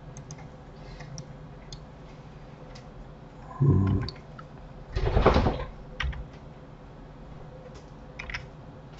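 Computer keyboard and mouse clicks, scattered and light, over a steady low hum from the desk microphone. Two louder short noises stand out, a low one about three and a half seconds in and a louder, wider one around five seconds.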